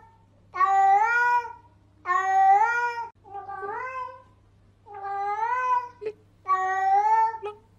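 Domestic cat meowing repeatedly: five drawn-out meows of about a second each, each rising and then falling in pitch, the third one fainter.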